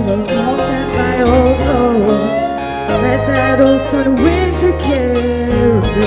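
Live band playing a song: a woman sings the lead melody over drums and guitar.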